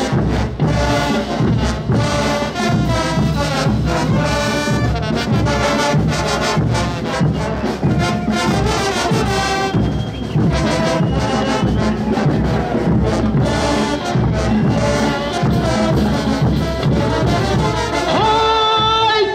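Brass band playing a morenada: trumpets and trombones over a steady, evenly repeating drum beat.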